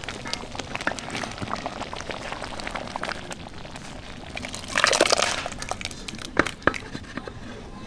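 Cooking sounds: irregular sharp crackles and pops throughout, with a louder rush of noise about five seconds in.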